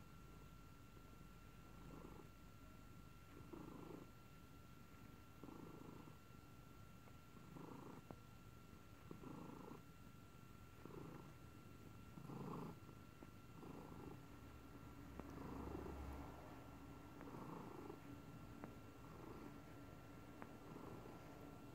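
Domestic tabby cat purring softly, the purr swelling and easing about every second and a half as she breathes in and out.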